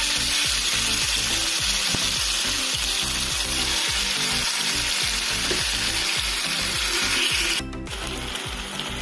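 Marinated boneless chicken pieces sizzling steadily as they shallow-fry in hot oil in a pan. About seven and a half seconds in, the sound cuts abruptly to a quieter sizzle.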